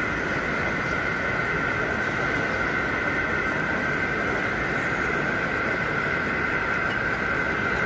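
Steady background din of a large exhibition hall, with a constant high-pitched hum over it.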